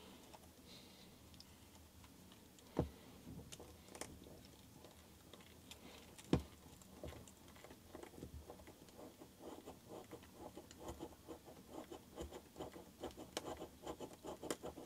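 Cannondale Headshok DL70 damper being pumped up and down by hand during its oil bleed: two sharp knocks, then from about halfway a quickening run of small gurgling, bubbling pulses as trapped air cavitates in the oil and works out through the shims.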